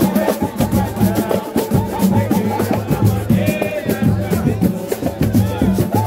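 Live samba percussion playing a fast, steady groove: pandeiros with jingles, a metal shaker and a deep hand drum, with voices singing over it.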